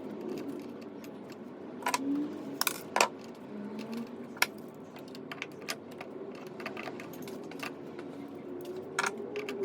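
Scattered sharp clicks and light metallic taps of hand tools and hardware being handled during electrical work. A few come close together about two to three seconds in, one more about four and a half seconds in, and another near the end.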